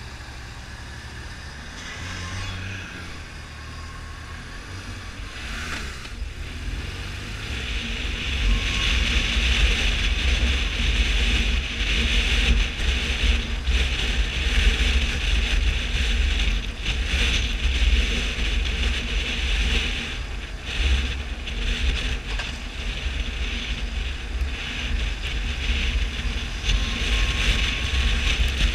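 Riding a BMW R1200 motorcycle: the flat-twin engine running under a low road rumble and wind rushing over the microphone. The sound grows louder about eight seconds in as the bike picks up speed.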